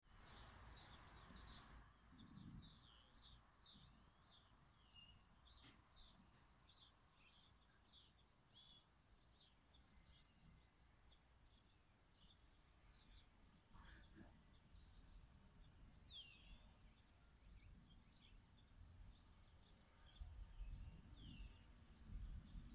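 Faint birdsong: many short chirps and whistles from small birds, over a low background noise that swells near the end.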